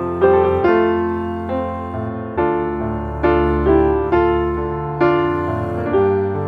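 Slow, gentle piano music: notes and chords struck roughly once a second and left to fade.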